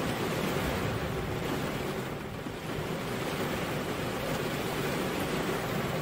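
Steady rain falling, an even hiss that softens briefly about two seconds in.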